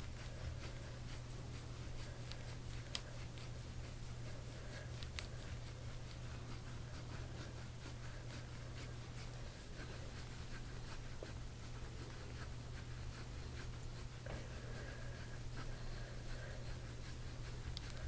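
Faint rubbing and scratching of deep-tissue massage on a patient's back, hands or a tool working over skin and clothing in small irregular strokes, over a low steady hum.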